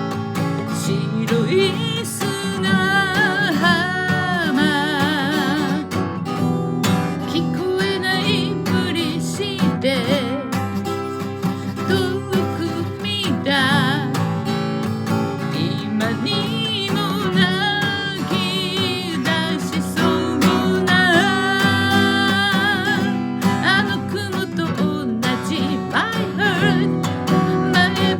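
A solo voice singing with vibrato over a strummed acoustic guitar: one performer singing and playing together.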